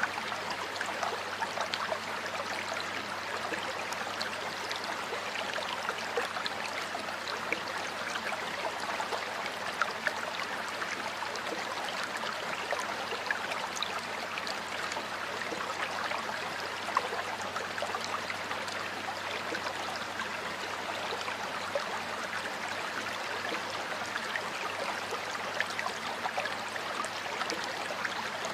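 Water flowing steadily over rocks in a stream, a continuous rushing babble with small splashes and trickles throughout.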